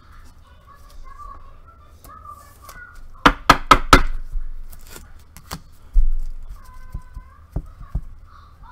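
Hard plastic card top loader and trading cards handled on a tabletop: a quick run of five sharp clicks a little after three seconds, then a few single clicks and a low thud as cards are set down.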